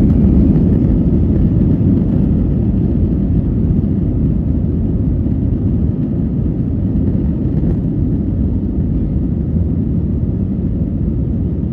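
Steady low rumble inside the cabin of an Airbus A320-200 taxiing, with its engines at taxi thrust. It is slightly louder in the first second.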